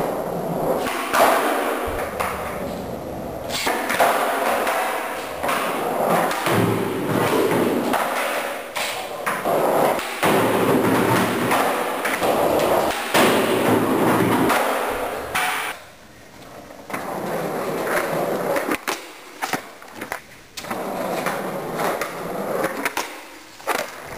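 Skateboard wheels rolling over concrete, broken again and again by sharp clacks and thuds of the deck hitting the ground as tricks are popped and landed.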